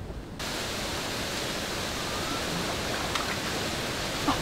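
Steady, even rush of running water at a swimming pool, starting abruptly about half a second in. A few faint baby squeals sound over it.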